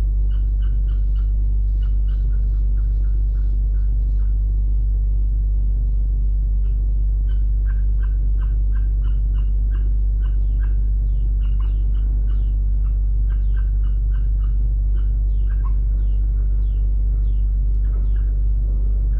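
A parked car's engine idling with a steady low rumble, while an animal gives a long run of short, high chirping calls, two or three a second, some dropping in pitch.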